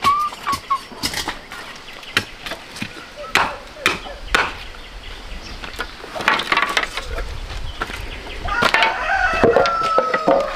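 Split bamboo strips clattering and knocking together as they are picked up and dropped, with a rooster crowing once for about two seconds near the end.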